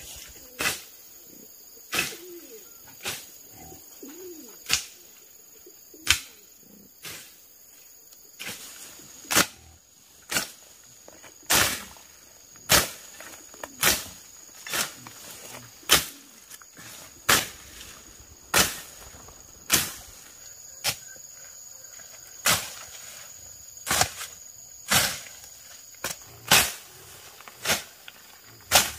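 Machete slashing through weeds and brush, one sharp swish-chop about every second, over and over.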